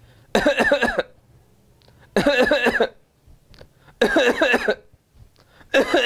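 A man coughing on purpose in repeated fits, four short bursts spaced about two seconds apart. This is the 'cough in three paroxysms' pattern that homeopaths tie to the remedy Cuprum metallicum.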